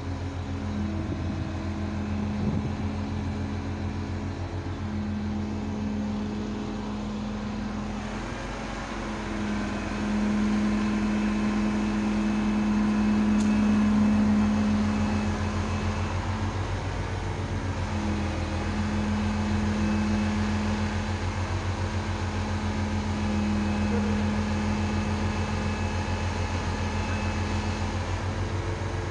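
Crane's engine running steadily throughout, getting louder from about ten seconds in and easing back after about fifteen seconds, while the lifting slings are taken up under a narrowboat.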